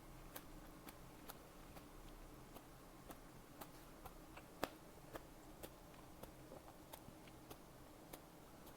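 Close-miked chewing: a string of faint, sharp crunches and mouth clicks at uneven intervals, with one louder crunch about halfway through.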